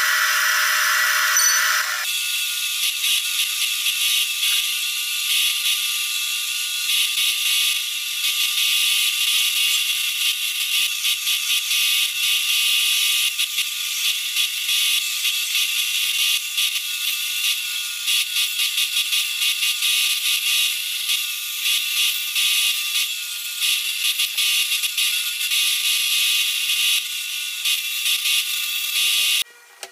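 Homemade bench disc sander running, with a small piece of wood held against the spinning sanding disc: a steady high whir mixed with the scratch of abrasive on wood. The sound shifts about two seconds in, when the wood goes to the disc, and stops abruptly near the end.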